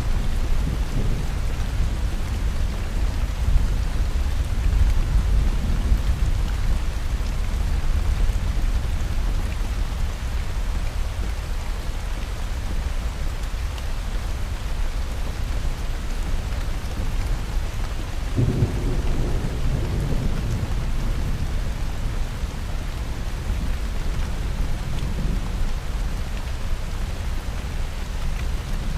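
Thunderstorm: steady rain with deep rolling thunder rumbling underneath, and a sharper thunderclap breaking about two-thirds of the way through, then rumbling away.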